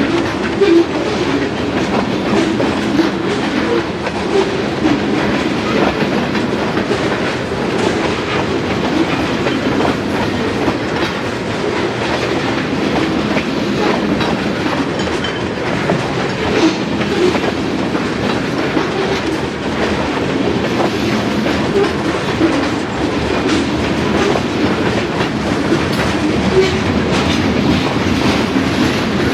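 Freight train rolling past at close range, a steady rumble with its wheels clicking rhythmically over the rail joints.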